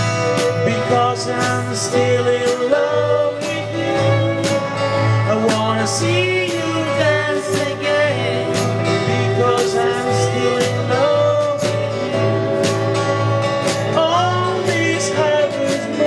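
Band music with a steady, pulsing bass beat and a melody line that slides up and down in pitch, in a country-like style; no words are sung.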